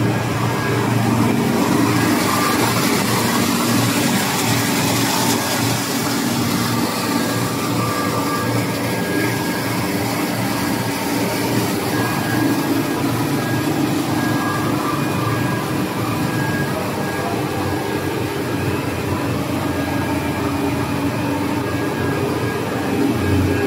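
Cast stretch film production line running: steady machinery noise from its motors and rollers, with a thin high whine held over it.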